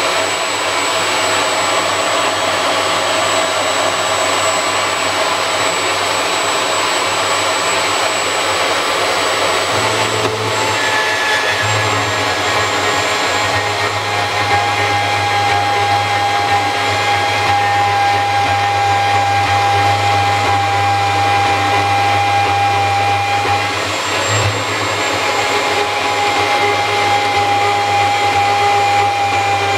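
Makita portable band saw running continuously as it cuts out the profile of a knife blade blank: a steady motor hum and blade noise with whining tones that shift a little as the cut's load changes.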